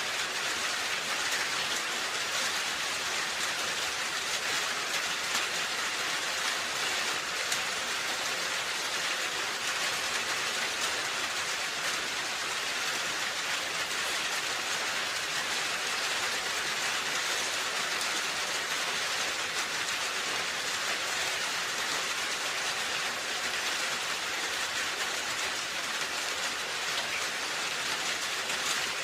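Steady rain falling on a roof: an even, unbroken hiss of many drops, with faint scattered ticks of single drops.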